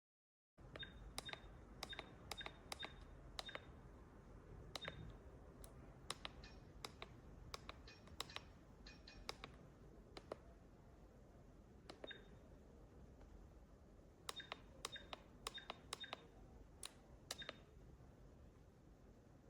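Buttons on a children's digital instant camera being pressed in quick runs, each press a small click, most with a short high beep, with pauses between the runs.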